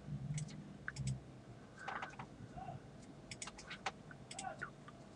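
Faint, scattered clicks and taps from a computer keyboard and mouse, coming in small irregular clusters.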